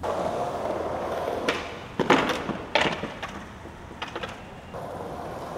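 Skateboard wheels rolling on concrete, then about two seconds in a few sharp clacks as the board pops and strikes the cannon and the pavement. The wheels roll again near the end.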